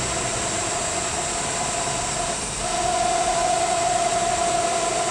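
Milltronics RH30 vertical machining center's X-axis drive moving the table, a steady mechanical whine. The whine drops out briefly about halfway through and then resumes slightly louder.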